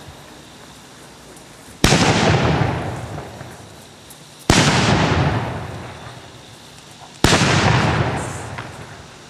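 Ceremonial salute shots fired from the ground: three loud bangs about two and a half seconds apart, each sharp and followed by a rolling echo that dies away over about two seconds.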